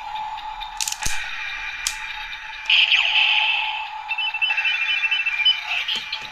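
Electronic sound effects from a toy Kamen Rider Agito Ridewatch used with a Ziku-Driver transformation belt, played through the toy's small speaker. Sharp plastic clicks come about one and two seconds in, then a loud noisy burst, then a quick run of beeps.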